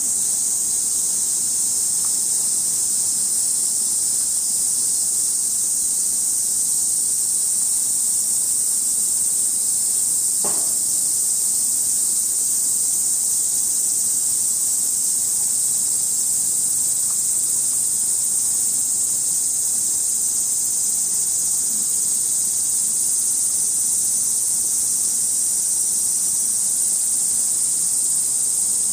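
Steady, high-pitched drone of a summer cicada chorus, unbroken throughout.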